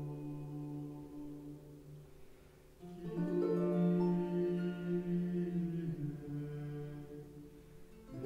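Background music of slow, held chords; it fades low, then a louder chord comes in about three seconds in and shifts again near six seconds.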